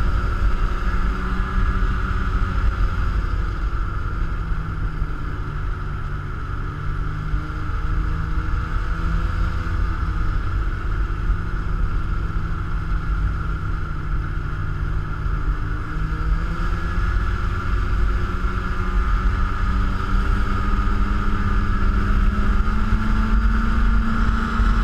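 Snowmobile engine running steadily at cruising speed on a groomed trail. Its pitch creeps slowly upward over the second half.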